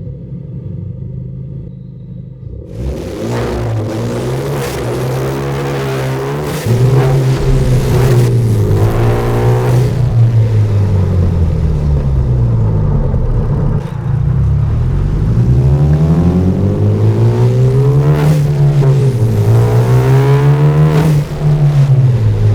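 Turbocharged Hyundai Genesis Coupe with an aftermarket free-flow exhaust, driven with a manual gearbox. After a steady low drone for the first couple of seconds, the engine note repeatedly climbs and drops as it revs up and comes off the throttle, with brief dips between pulls.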